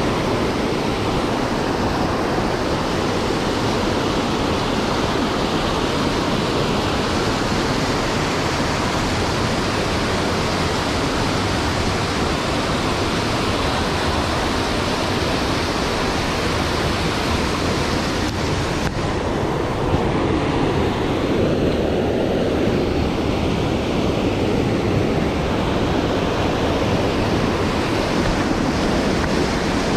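Rocky mountain stream rushing over boulders in small cascades: a steady, even rush of white water close by.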